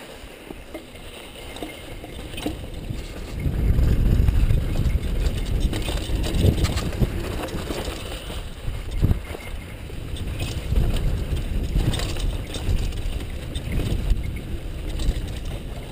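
Mountain bike riding fast down a loose dirt trail: tyres rolling and skidding over dust and rocks with wind rumbling on the camera microphone and occasional knocks and rattles from the bike over bumps. The rumble grows louder about three and a half seconds in as speed picks up.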